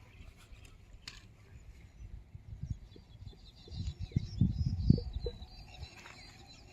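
Small birds chirping in short high calls, over a run of low thuds and rumbles about four to five seconds in.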